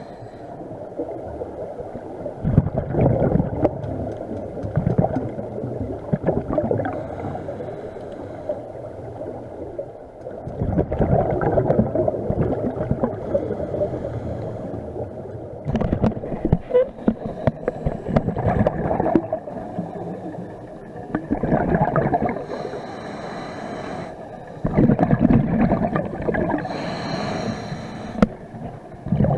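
Scuba diver breathing through a regulator underwater: bursts of exhaled bubbles gurgling every few seconds, with a higher hiss between some of them.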